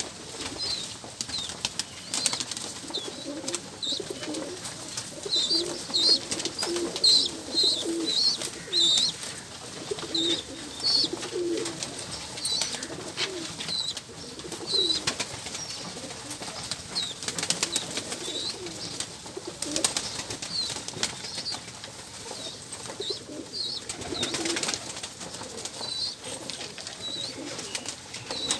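A crowded flock of fighter pigeons feeding, with continual overlapping cooing, repeated short high chirps, wing flaps and scattered sharp clicks.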